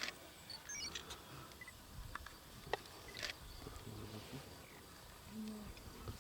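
Faint outdoor bush ambience: a low background rumble with a few short, high chirps and ticks, and a brief noisy rasp about three seconds in.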